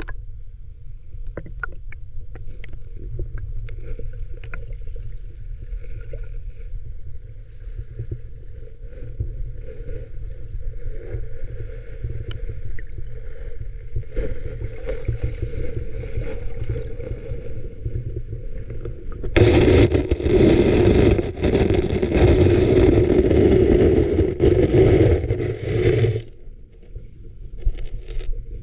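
Sea water moving around a GoPro 10 filming the shallow sea bottom: a steady, muffled low rumble with scattered faint clicks. From about two-thirds of the way in, a louder rushing of water lasts some six seconds, then drops away.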